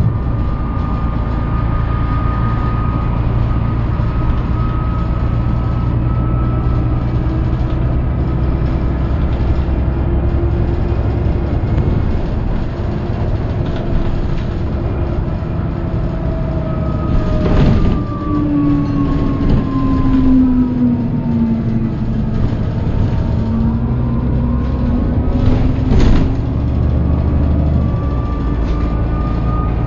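Cabin running noise of a MAN 18.310 HOCL-NL city bus under way: a steady diesel drone with a gear whine that falls in pitch as the bus slows and climbs again as it picks up speed. The whine is the hub-reduction axle's gear noise. Two sharp knocks come through, about eight seconds apart.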